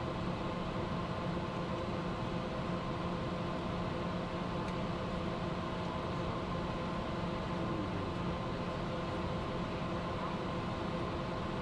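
Steady cockpit noise of a private jet climbing after takeoff: a constant rush of air with a steady hum that carries several fixed tones.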